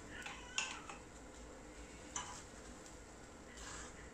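Wooden spatula scraping and tapping against a non-stick appam pan a few times as a crispy coconut-milk appam is loosened and lifted out. The clicks are short and faint.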